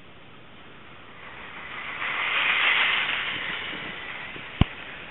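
R/C rock crawler trucks driving over gravel close by: a hiss of tyres and running gear that swells to a peak about halfway through and then fades. A single sharp knock comes near the end.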